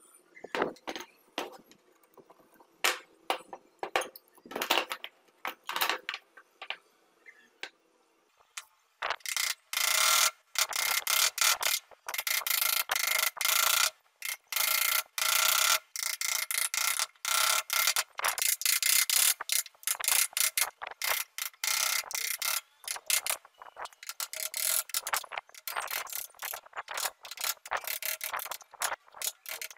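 Scattered clicks and knocks, then from about nine seconds in a chisel paring a clamped wooden block in rapid, continuous scraping strokes, with a steady ringing note.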